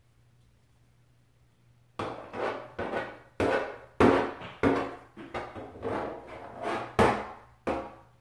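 Loud, irregular knocking on a door, about a dozen heavy knocks beginning about two seconds in, each ringing briefly in the small room.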